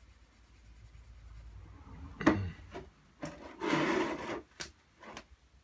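A handful of sudden scrapes and rubs against a hard surface: a sharp loud one about two seconds in, a longer rasping one near four seconds, and two short ones near the end.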